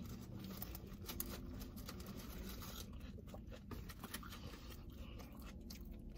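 Faint crinkling and rustling of aluminium foil as fries are picked out of a foil-covered takeout tray, with scattered small crackles.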